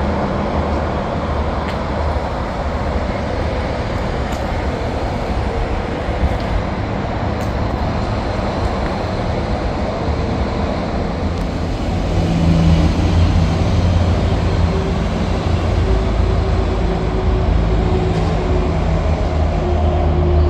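Diesel train engine running with a steady low hum, growing louder about twelve seconds in.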